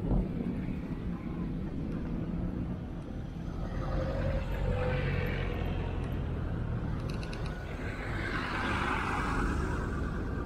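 Old military jeeps driving slowly past one after another on cobblestones, their engines running at low speed with a steady low rumble.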